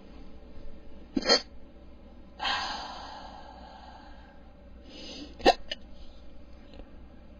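A man's hiccups, two sharp ones about four seconds apart: a stubborn bout that won't quit. Between them comes a long, noisy breath.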